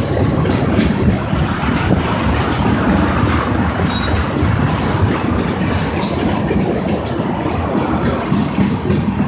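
Railway tank cars of a freight train rolling past close by: a steady, loud rumble and clatter of steel wheels on the rails, with a faint high wheel squeal now and then.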